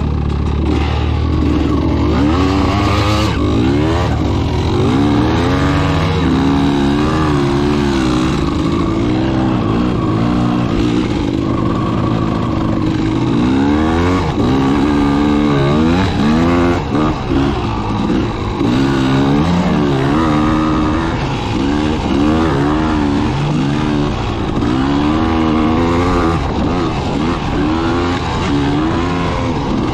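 Dirt bike engine riding over sand dunes, its revs rising and falling again and again as the throttle is worked. For the first few seconds the engine sound is a steadier low drone before the revving starts.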